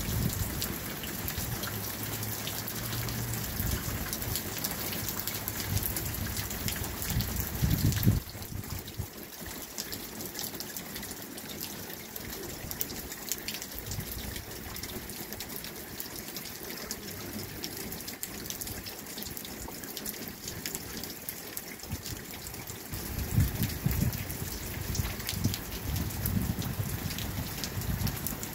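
Steady rain falling, with many individual drops heard as small ticks. A low rumble runs under it for the first eight seconds or so, drops away suddenly, and comes back near the end.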